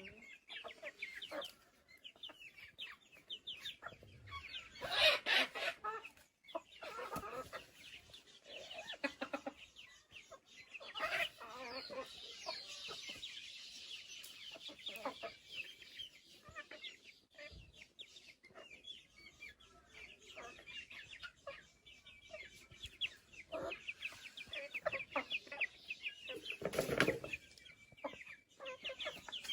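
A flock of young chickens peeping and clucking continuously, many short high calls overlapping. There are two louder sounds, about five seconds in and near the end.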